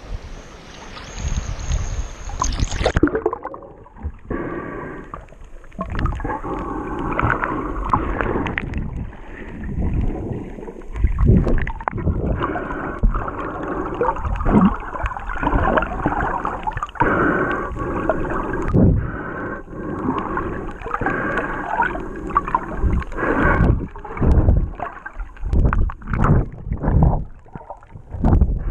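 Water splashing at the surface, then the camera goes under about three seconds in and the sound turns muffled: uneven underwater rumbling and gurgling with irregular thumps from a snorkeler swimming.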